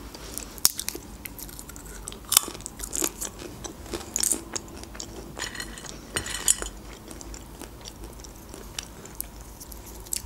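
Close-up chewing and crunching of snack food, with scattered crisp clicks. A short rattle of pistachios being picked up comes a little past halfway.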